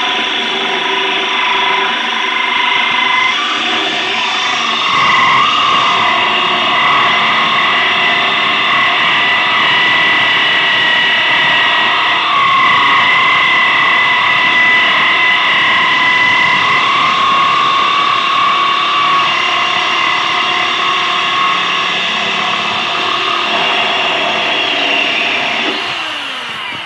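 Corded electric drill running steadily with a diamond core bit grinding through wet glass, a high wavering whine over the motor's drone. The drill winds down at the very end once the hole is through.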